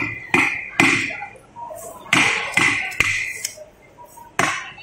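A heavy knife chopping through a large catfish into a round wooden chopping block. There are about eight sharp chops in loose groups of two or three, and each has a short ring from the blade.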